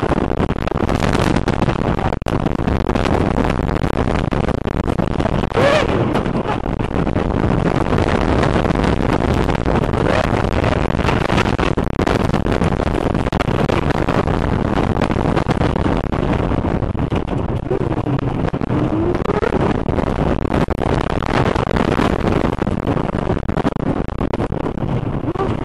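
A wooden roller coaster train running at speed over its track: a loud, continuous rumble and clatter from the train, with wind buffeting the microphone. Twice a rider's shout rises above the noise, a few seconds in and again in the second half.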